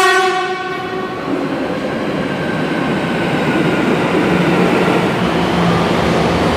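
Metro train horn sounding for about a second, followed by the steady rushing noise of the train running alongside the platform.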